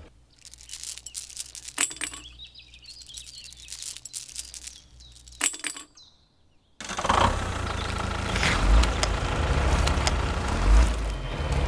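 Small metal chain clinking and jingling as it is handled and hooked between two toy tractors. After a short silence, a small motor starts up about two-thirds of the way through and runs steadily with a low rumble as the toy tractor takes up the tow.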